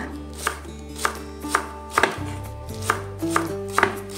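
Kitchen knife chopping spring onions, about two cuts a second, over quiet background music.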